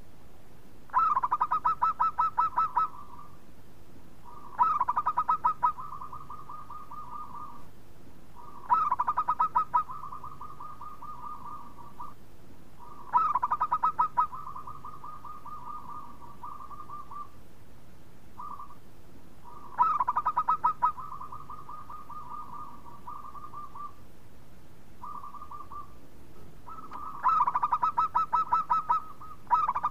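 Zebra dove (perkutut) cooing: six song phrases, each a quick run of loud staccato notes that trails off into a softer rolling trill, with a pause of several seconds between phrases.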